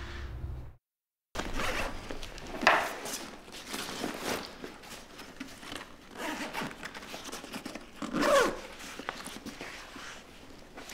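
A zipper on a sports bag pulled in strokes, with the rustle of the bag's fabric and a tennis racket being handled and packed, and two louder pulls, one between two and three seconds in and one at about eight seconds. Under a second in, a car engine's low hum cuts off abruptly into a moment of dead silence.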